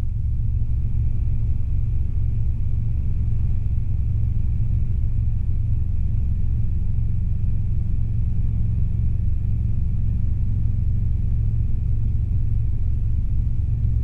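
Robinson R22 helicopter in flight: the steady low rumble of its rotors and four-cylinder Lycoming piston engine, with a faint steady whine above it, during a climbing turn.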